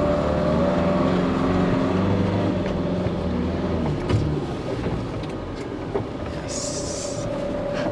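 Tata Intra V50 pickup's 1.4-litre engine pulling the truck under a 1500 kg load, heard from inside the cab. Its note wavers in the first second, then runs steady. A short hiss comes near the end.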